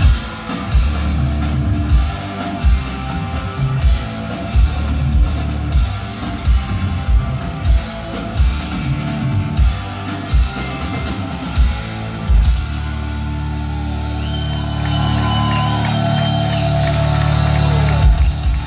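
Live hard rock band playing loud, with drum kit, electric bass and distorted electric guitar. About two-thirds of the way through the drums drop out, leaving a held chord with high sliding guitar notes over it, and the drums come back in near the end.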